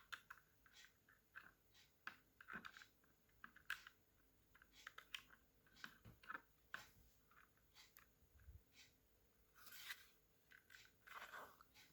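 Faint, scattered clicks and light scraping as an SSD is handled and fitted into the laptop's drive bay.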